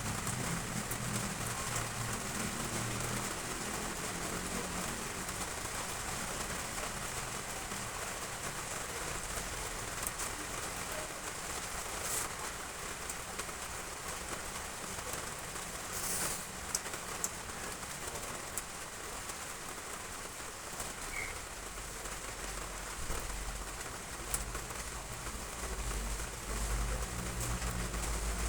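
Heavy rain falling steadily, pattering on roof tiles, with a few sharp louder drip impacts. A low rumble builds near the end.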